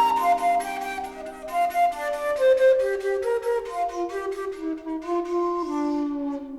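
Background music: a flute melody stepping downward over evenly paced plucked notes.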